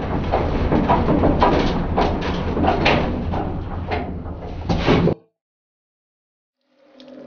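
Moving truck's metal cargo bed rattling and clanking over a steady low engine drone, cutting off suddenly about five seconds in.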